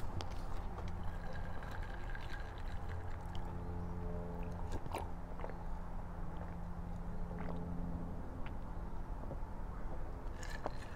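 A person chewing food, then drinking from a glass of iced soda, with a few small clicks along the way and a cluster of sharper clicks near the end.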